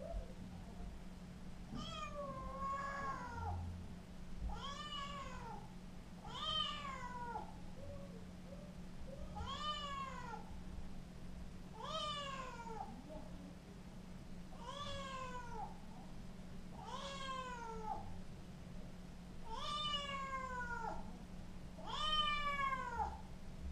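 Scottish fold kitten meowing again and again, about nine times, one every two to three seconds, each meow rising then falling in pitch. A steady low hum runs underneath.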